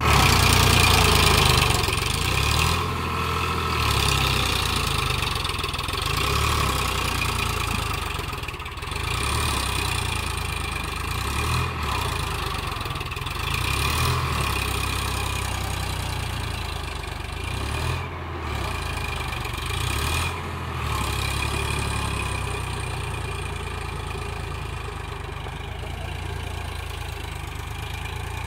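Eicher 551 4WD tractor's diesel engine running, its note rising and falling every few seconds.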